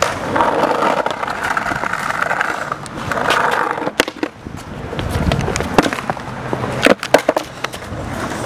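Skateboard rolling over concrete, the wheels giving a steady rolling noise broken by sharp clicks and knocks, with a cluster of them about seven seconds in.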